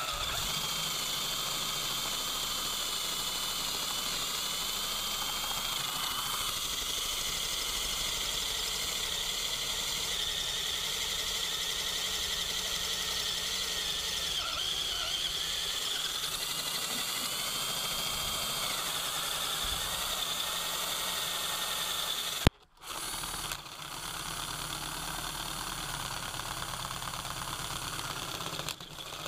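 Power drill running steadily under load, its bit cutting into the steel hub of an engine pulley, with a high whine that wavers in pitch. About 22 seconds in it stops with a click and starts again a second later.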